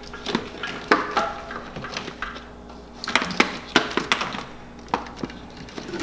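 Wiring harness and plastic connectors being handled and fed through behind a plastic panel: irregular rustling with scattered clicks and taps, several sharp clicks about three to four seconds in.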